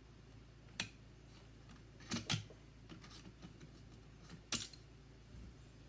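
A few short, sharp clicks and taps of tools against the circuit board while a surface-mount chip is being desoldered: one, then a quick pair, then a double click near the end, over a faint steady hum.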